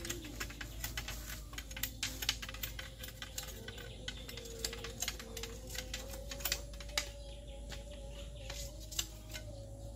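Machete chopping and trimming a bamboo pole: irregular sharp taps and cracks, several a second, some louder strikes among them.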